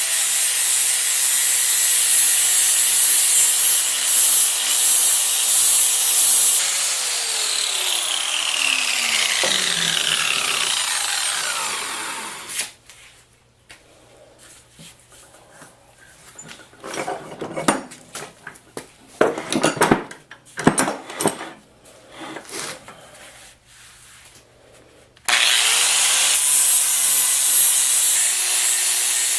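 A power tool running against the metal of the vise during cleaning, then switched off, its pitch falling as it spins down over about five seconds. Then comes a stretch of scattered knocks and clicks from handling, and the tool starts again suddenly near the end.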